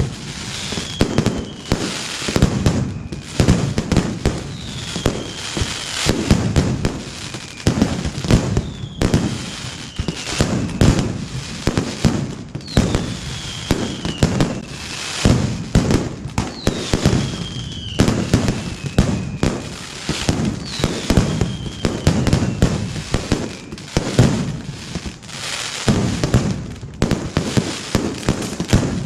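Mascletà: strings of ground-level firecrackers going off in a dense, continuous barrage of sharp bangs. A falling whistle rises above the bangs about every four seconds.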